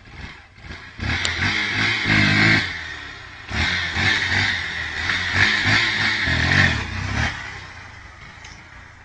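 Motorcycle engine revving in two long spells: once about a second in, and again for nearly four seconds from the middle, then dropping back.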